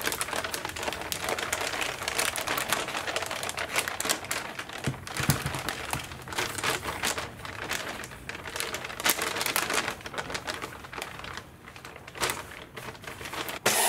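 Clear plastic vacuum-bagging film being handled and spread over breather cloth: irregular crinkling and crackling of the film. Right at the very end a steady hiss starts suddenly, the vacuum pump switching on to draw down the bag.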